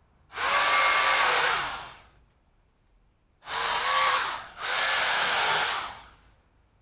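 A pole saw running in three short bursts, the last two close together, with a steady whine that drops in pitch as the motor winds down at the end of each burst.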